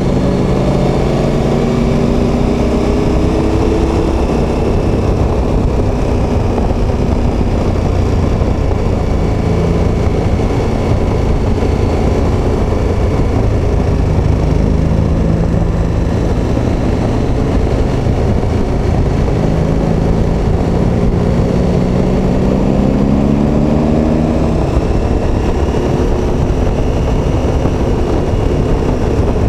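KTM 1290 Super Adventure S's V-twin engine heard from the bike while riding, the revs climbing and falling back as it accelerates and shifts, over a steady rush of wind.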